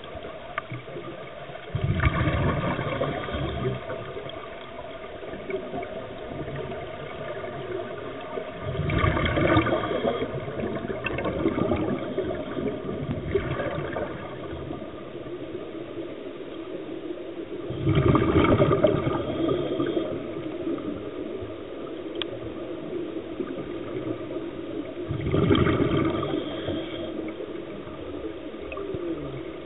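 Scuba diver's exhaled air bubbling out of the regulator, heard underwater: four gurgling bursts, each lasting a second or two, about every seven to eight seconds, over a steady low water hiss.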